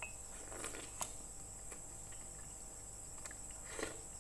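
Quiet eating sounds: a piece of chicken being chewed, with a faint click about a second in and a short slurp from a spoon of soup near the end.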